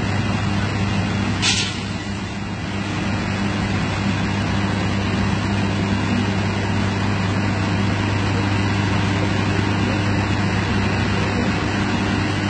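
CC300 diesel-hydraulic locomotive running with a steady low drone as it pushes a train of coaches slowly along the flooded line, over a hiss of rain. A brief sharp hiss about a second and a half in.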